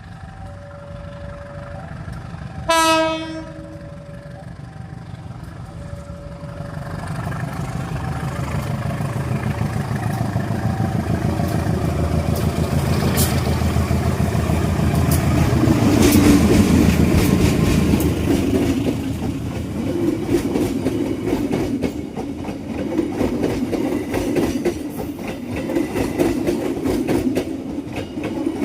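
A train sounds its horn in one short blast about three seconds in, then approaches and passes. Its low rumble builds to a peak around the middle, and the wheels clack rapidly over the rail joints through the rest.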